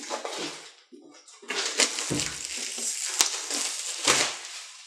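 Plastic shrink wrap crinkling and crackling as it is torn and peeled off a cardboard board game box. Two dull knocks about two and four seconds in come from the box being handled.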